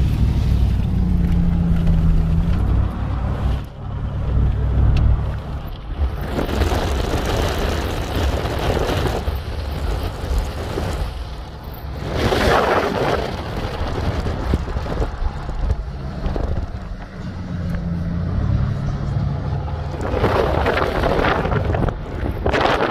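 A vehicle driving on a snowy road: a low engine and road rumble, heaviest in the first six seconds. Wind rushes over the microphone in swells, loudest about twelve seconds in and near the end.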